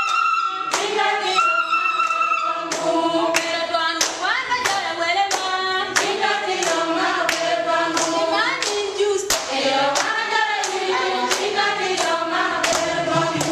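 A group of women singing together, clapping their hands to a steady beat of about three claps every two seconds.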